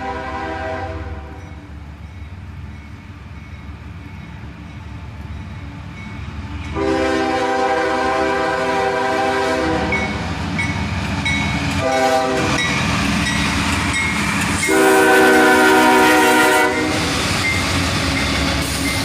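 Air horn of a CSX freight's lead GE ES40DC locomotive sounding a sequence: a blast ending about a second in, then a long blast, a short one and a final long one, the pattern of the grade-crossing signal. A steady low rumble of the approaching train lies beneath.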